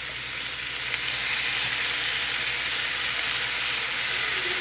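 Squash sautéing in a hot frying pan, sizzling steadily. The sizzle swells over the first second, just after soy sauce is added, then holds even.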